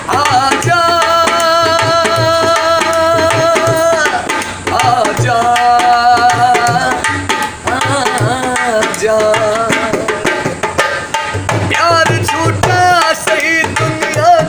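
Dholak, a two-headed barrel drum, played by hand in a steady rhythm, with a man's voice holding long wordless sung notes over it.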